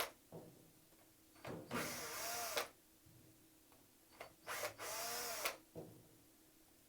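Electric screwdriver running in two bursts of about a second each, its motor pitch rising and then falling, backing out the Torx 20 screws that hold the drive unit cover.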